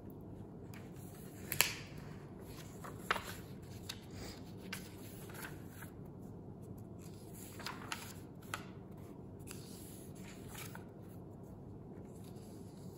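Paper rustling as book pages are handled and turned, with a few short, sharp flicks, the loudest about a second and a half in.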